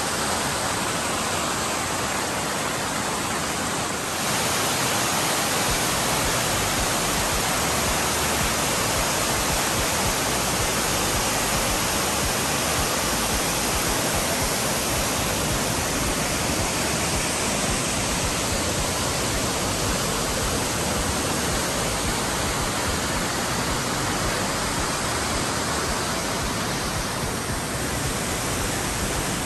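Steady rushing of white water from a rocky mountain creek and a tall waterfall cascading over rock. It is a dense, unbroken noise that steps up a little about four seconds in.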